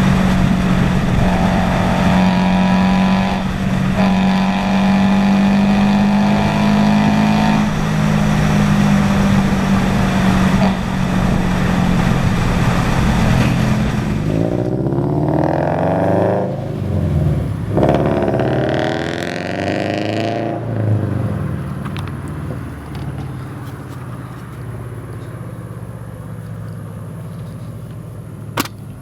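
GT86/BRZ/FR-S 2.0-litre flat-four engine through a catless aftermarket exhaust, held at steady revs for about half the time. It is then revved up and down over several seconds, and the note fades and quietens. Two sharp clicks come near the end.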